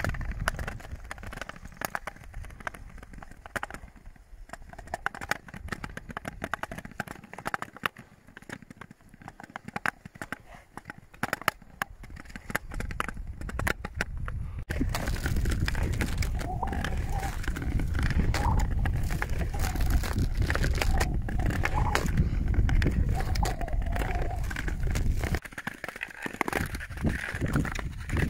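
Ice skates gliding and scraping over thin lake ice, with many sharp clicks and crackles from the ice. About halfway through it turns louder, with a heavy low rumble under the skating.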